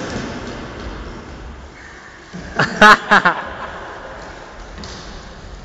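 Short, loud shouts from players, about three seconds in, in two or three quick parts, over a low background of play in an echoing sports hall.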